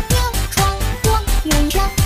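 Upbeat electronic pop song with a sung vocal, over a steady kick drum hitting about twice a second.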